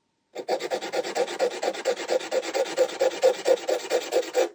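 Tiny brass pin head held in tweezers being rubbed back and forth on a sanding block, about six fast, even scraping strokes a second, sanding its round head flat. It starts about half a second in.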